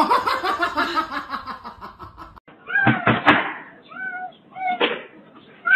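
A drawn-out sound with many harmonics falls slowly in pitch for about two seconds. Then two sharp knocks come, a cat pawing against a glass patio door, and the locked-out cat meows three times in short calls.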